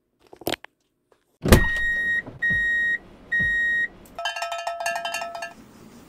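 Countdown sound effect: a short swish, then three even beeps just under a second apart, each starting with a thump, then a lower, longer buzzing tone as the count reaches zero. Near the end a faint steady hiss of rain sounds begins.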